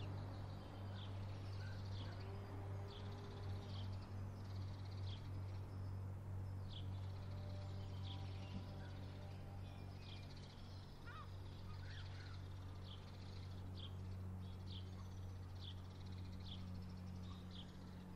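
A small bird chirping repeatedly, short high falling notes about once a second, over a faint low steady hum.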